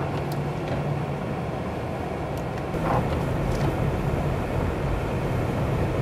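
Car interior noise while driving on a snowy road: a steady engine and road rumble. A short knock comes about three seconds in, after which the rumble is a little louder.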